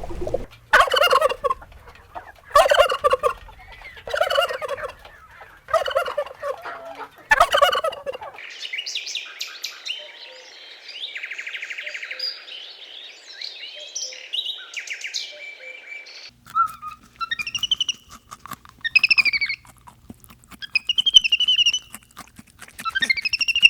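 Farm animals calling: five short, loud calls about a second and a half apart, then a stretch of high chirping and peeping calls.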